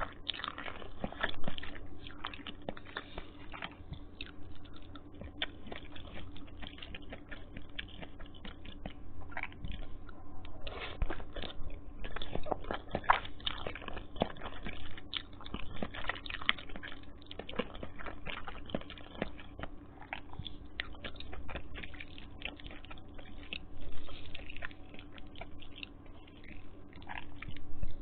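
Close-miked chewing and eating of Maggi instant noodles, with many small, irregular mouth clicks.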